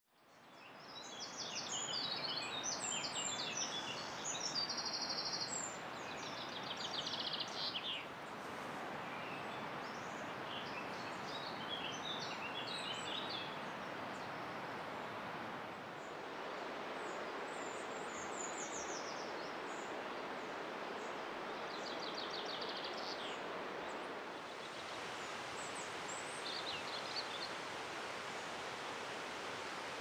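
Woodland songbirds singing: short, high, rapid trilling phrases, several close together in the first few seconds and then at intervals, over a steady rushing background.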